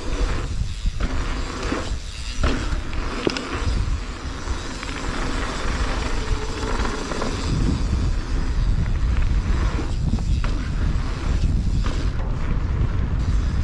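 Mountain bike running down a dirt flow trail, with tyre noise and short rattles and knocks over bumps. Heavy wind rumble on the microphone runs under it.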